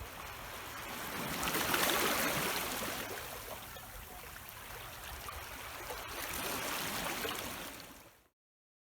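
Water rushing and trickling. It swells about two seconds in and again near the end, then fades out to silence.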